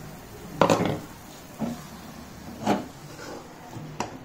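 Steel slotted spatula scraping through thick, cooked wheat halwa against the pan: three short scrapes, the first and loudest about half a second in.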